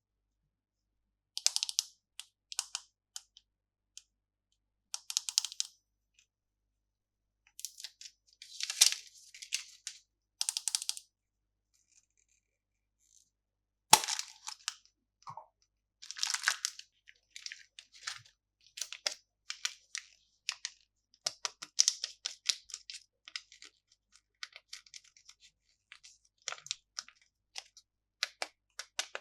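Candy packaging being handled and opened, crinkling and rustling in short irregular bursts with silent gaps between, and a single sharp click about halfway through.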